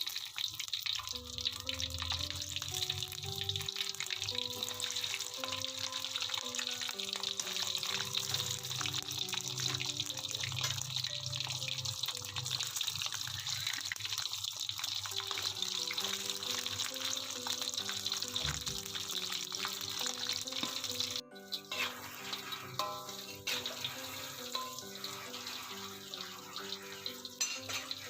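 Tap water running steadily into a sink over background music with a plain melody; the rush of water stops abruptly about two-thirds of the way through, leaving quieter splashes and light clatter under the music.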